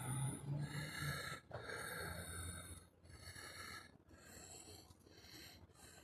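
A person breathing audibly close to the microphone, several soft breaths in a row.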